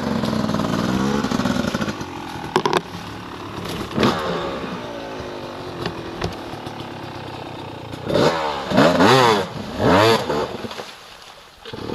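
Dirt bike engine revving hard, pitch rising and falling with the throttle, the strongest revs about eight to ten seconds in before it eases off near the end.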